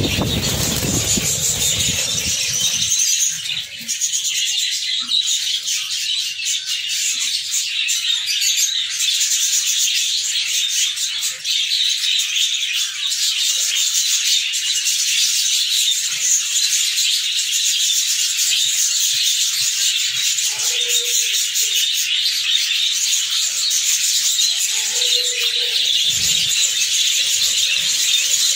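A flock of budgerigars chattering and warbling without a break in an aviary, a dense high twitter. A low rumble of handling noise sits under it in the first couple of seconds.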